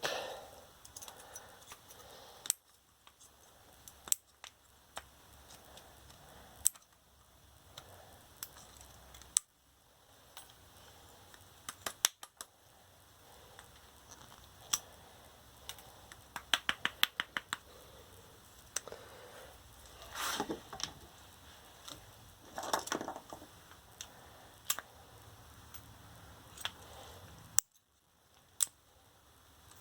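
Scattered clicks and short scrapes of hand tools and cells being handled as an 18650 lithium-ion scooter battery pack is taken apart, with a quick run of about ten clicks near the middle.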